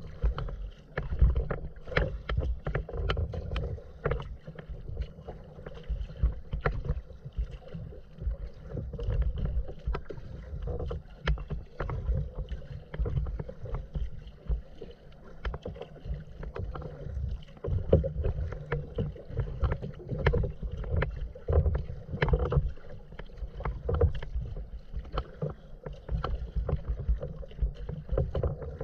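Choppy water slapping and lapping against a moving kayak's hull, with irregular sharp splashes over a steady low rumble of water.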